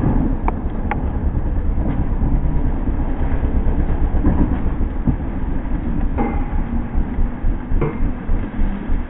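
ATV engine running low and rough, turning into a slow throbbing of about two pulses a second near the end, with a few brief knocks and rattles.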